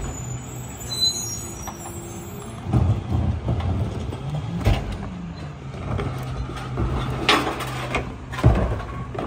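Mack Granite garbage truck's diesel engine idling behind its Heil rear-loader body, its pitch rising and falling once midway. Several sharp knocks and bangs come as a wheeled trash cart is tipped and knocked against the rear hopper.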